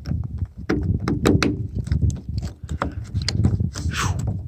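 Clicks and clatter of a key turning in a stiff, rusty Thule roof bar lock and the foot's cap and clamp being worked by hand, with a short squeak that falls in pitch near the end.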